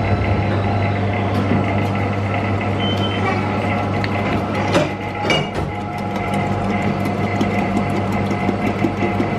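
Milkbot milk vending machine running with a steady hum as it dispenses milk into a glass bottle, with two short knocks about halfway through.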